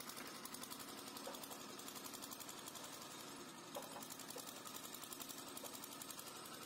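A steady, fast-repeating mechanical whirr, like a small machine running, with a few faint clicks from the plastic tail-light housing being handled.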